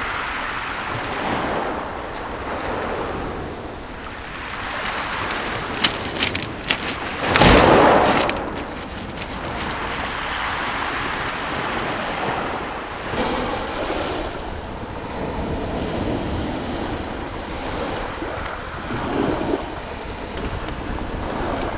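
Small waves breaking and washing back over a shingle beach, with wind buffeting the microphone. A couple of sharp clicks a little before a louder rush about a third of the way through.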